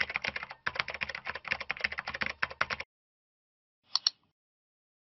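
Computer keyboard typing: a rapid run of key clicks for about three seconds, then a quick double click about four seconds in, as of a mouse clicking a button.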